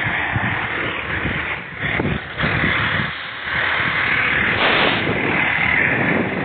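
Diesel engine of a Pierce quint fire apparatus running close by, a steady noise with wind buffeting the microphone.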